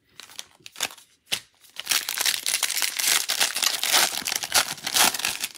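Foil wrapper of a 2021 Bowman Draft trading card pack being torn open and crinkled. A few light clicks come first, then dense crackling from about two seconds in.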